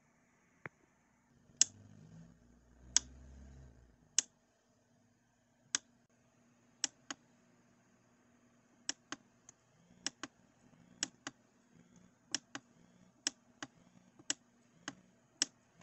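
Button on an XTAR VC2L battery charger pressed over and over: about twenty sharp plastic clicks at uneven intervals, while the charger's battery-type mode changes from Li-ion to Ni-MH. A low rumble of handling runs under the clicks from about one to four seconds in.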